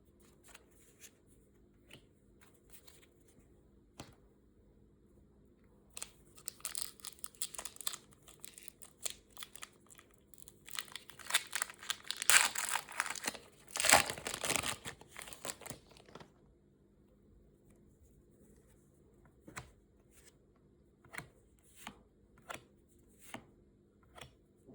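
Packaging being torn and crinkled open by hand for about ten seconds, loudest past the middle. Scattered light handling clicks come before and after.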